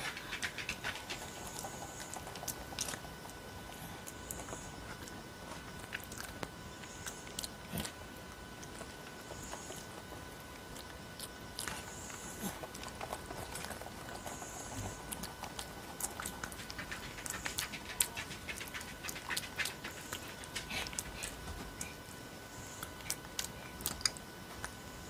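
Crab-eating macaque chewing banana close to the microphone: irregular wet mouth clicks and smacks, busiest past the middle. A faint steady whine runs underneath.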